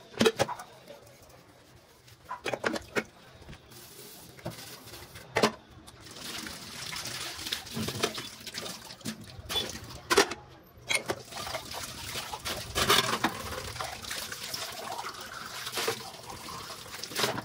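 Dishes being washed by hand at a sink: steel pots and ceramic dishes knock and clink against each other, and from about six seconds in a tap runs water over them as they are rinsed.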